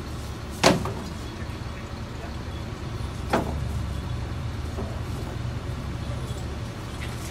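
Steady low rumble of a mobile crane's engine running, with two sharp knocks about two and a half seconds apart, the first the louder.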